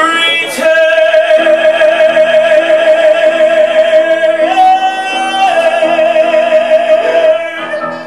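A man singing one long held note with vibrato, stepping up in pitch for about a second near the middle and dropping back again, over sustained piano chords.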